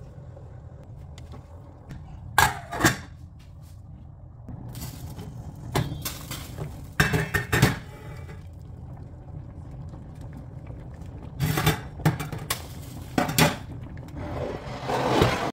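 Plastic spatula stirring rice in a stainless steel pot, knocking and scraping against the metal in a few short clusters over a steady low hum. Near the end a longer rising rush comes as the pot of boiling rice is gripped by its handles and moved.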